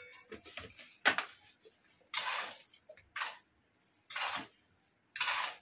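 Kitchen utensil and dish sounds at a counter: about five short scraping strokes, roughly a second apart.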